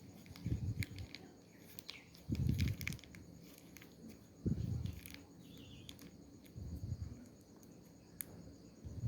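A sleeping person snoring: short, low snores about every two seconds. Behind them are scattered high insect chirps and clicks.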